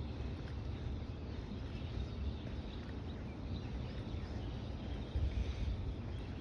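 Ocean waves washing on a beach under a steady, flickering low rumble of wind on the microphone, swelling a little about five seconds in.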